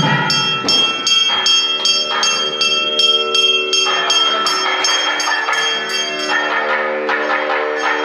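Temple bells clanging in a steady rhythm, about three strikes a second, each ringing on into the next. Held musical notes sound underneath, changing pitch every second or two.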